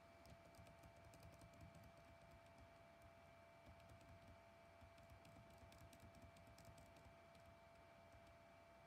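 Faint, quick key taps on a Dell laptop keyboard, pressed over and over as text is deleted a letter at a time; the taps stop about seven seconds in.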